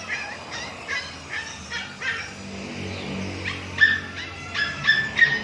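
A dog barking repeatedly in two bouts of short, high yips, over a steady low hum.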